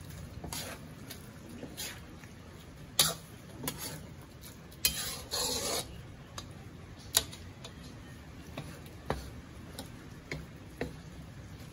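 Wooden spatula and metal ladle stirring a coconut-milk stew in a stainless steel wok. A few sharp clinks and scrapes of the utensils against the pan come at irregular moments.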